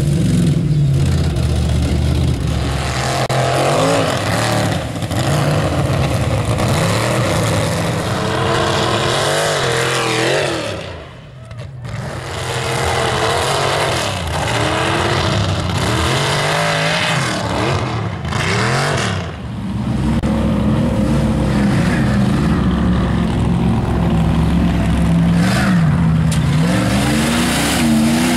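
Mud-bog pickup trucks' engines revving hard as they drive through a mud pit, the pitch rising and falling with the throttle. The sound dips briefly about eleven seconds in, then the revving picks up again.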